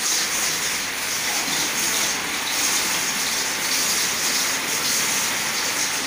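Steady hissing of a nail heat-treatment furnace line, with a faint crackle, as red-hot concrete nails drop from the furnace outlet toward the quench tank.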